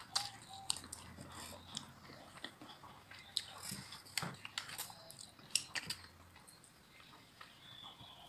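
Close-up sound of a person biting into and chewing a sauce-glazed fried chicken piece: irregular sharp clicks and crunches of the crisp coating and the mouth.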